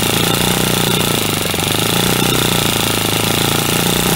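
OS FS-20 3.56 cc four-stroke glow plug model engine running steadily on a bench mount.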